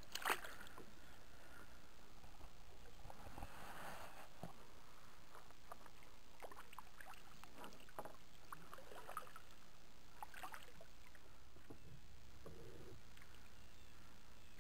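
Small handling noises in a plastic kayak: a sharp knock about a third of a second in, then a few seconds of rustling and scattered light clicks, with faint water sounds against the hull.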